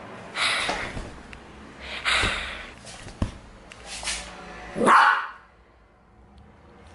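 Small dog giving a few short barks, the loudest about five seconds in.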